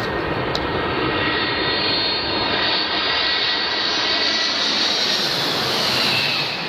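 Boeing 747-400 on low final approach passing directly overhead: a loud, steady roar from its four turbofan engines, laced with a high whine that drops in pitch near the end as the jet goes past.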